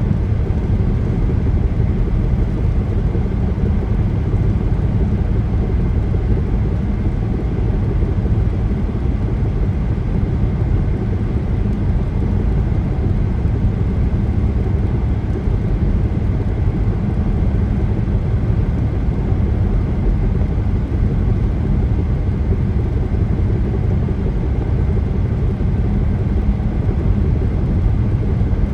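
Car driving at highway speed: a steady low rumble of tyre and road noise with the engine under it, unchanging throughout.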